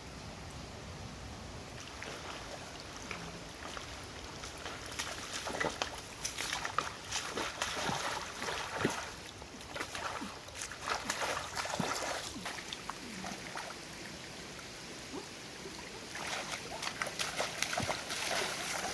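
Water splashing and trickling in irregular bursts over a steady low rush of water, as of someone wading and moving hands through shallow water.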